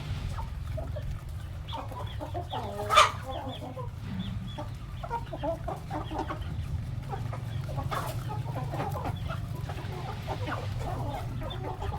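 Village chickens clucking as they feed, many short calls overlapping, over a steady low hum. A single loud, sharp sound stands out about three seconds in.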